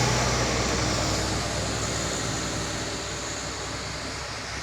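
A road vehicle's engine and tyres passing and fading as it drives away, with a steady low engine hum dying down.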